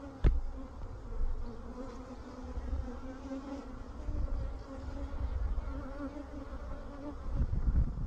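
Honeybees buzzing at an open hive, a steady hum. There is one sharp click just after the start.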